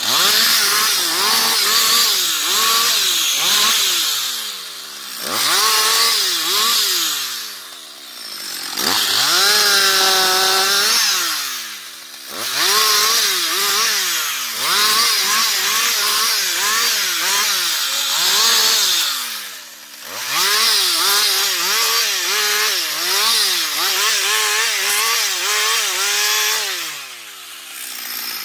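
Husqvarna 560XP two-stroke chainsaw limbing a felled tree: a string of full-throttle cuts through branches, the engine pitch wavering as the chain bites, falling back briefly toward idle between cuts about five times.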